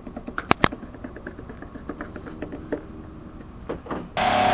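A couple of sharp clicks and light handling ticks on the car's trunk lid, then near the end a power drill starts up abruptly and runs steadily at full speed, boring into the trunk lid for the spoiler mounts.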